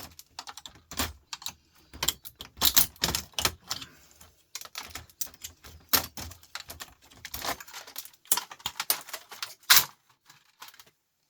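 Rapid, irregular clicks and clinks of small metal and plastic parts being handled and pried apart during an electronics teardown. The clicks pause briefly near the end.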